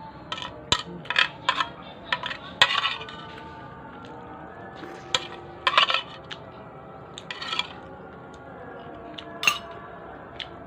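Spoon and fork clinking and scraping against a plate in irregular sharp clicks while noodles are eaten, with the loudest clatters about two and a half and six seconds in.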